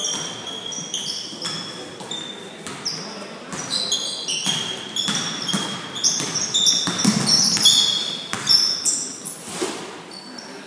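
Basketball game sounds on a hardwood gym floor: many short, high sneaker squeaks and a ball being dribbled, with players' and spectators' voices echoing in the gym.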